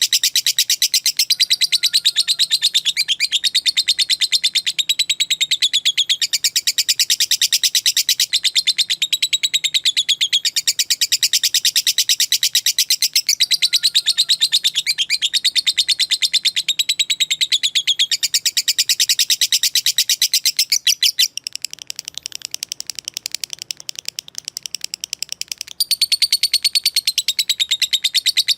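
Lovebird giving a long, unbroken, rapid-fire high chattering trill, the 'ngekek panjang' song of a fighter lovebird. It drops quieter for about five seconds near the end, then comes back at full strength.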